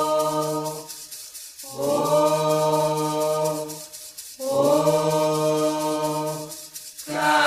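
Candomblé chant for Xangô, sung in three long held notes at a steady pitch, with short breaks between them.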